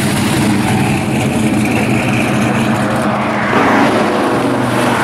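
Cars driving at highway speed: a steady engine drone under wind and tyre noise. The rush of noise grows louder about three and a half seconds in.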